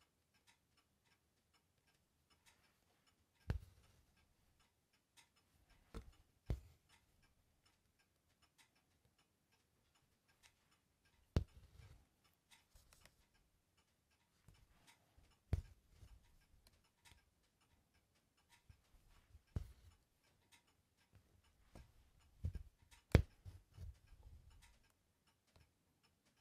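Soft, sharp taps and pops of an embroidery needle piercing fabric stretched tight in a hoop while split back stitches are worked, with the thread drawn through after each. They come irregularly every few seconds, about nine in all, the loudest a little before the end.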